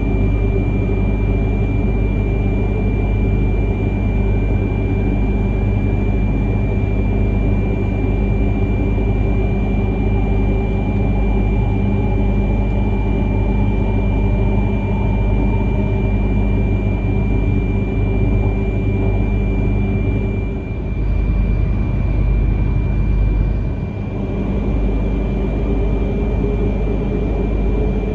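Shinkansen car interior at speed: a steady low running rumble with a constant hum and a thin high tone over it. The rumble shifts briefly about three-quarters of the way through.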